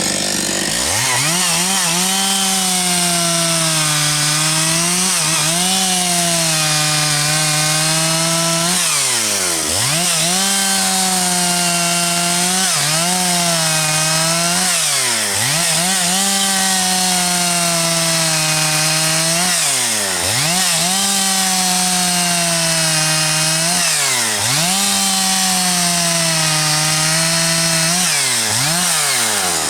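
Husqvarna 272XP two-stroke chainsaw running at full throttle, cutting firewood logs. Its revs drop sharply and climb back about ten times as the throttle is eased and opened again between cuts.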